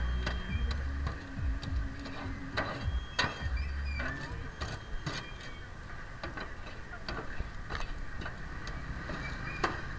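Busy street-market ambience: background voices, scattered sharp clicks and clinks, and a low rumble underneath.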